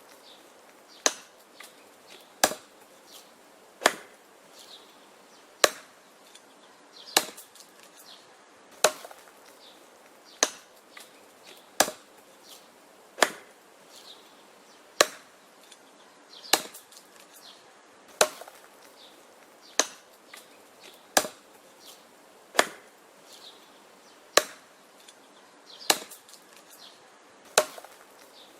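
Wood being chopped: a steady series of sharp, single chopping strikes, about one every one and a half seconds.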